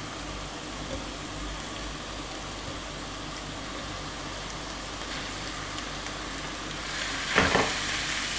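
Chopped onions sizzling steadily in hot oil in a frying pan. Near the end the sizzle gets louder and a spatula scrapes through the freshly added minced meat once.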